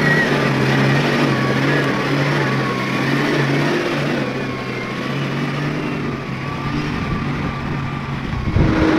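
A big farm tractor's diesel engine running steadily under load. A louder, higher steady hum sets in near the end.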